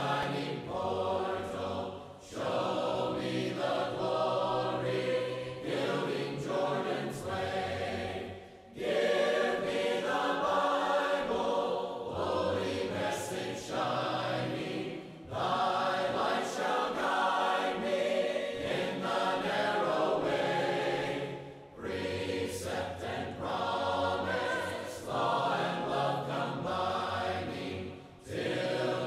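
Choir singing a hymn a cappella, voices only with no instruments, in phrases of about six seconds with brief breaks between them.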